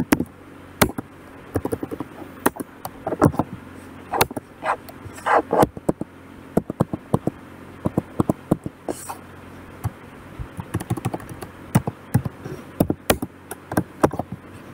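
Computer keyboard typing: irregular keystroke clicks, some in quick runs and some spaced out, as code is typed.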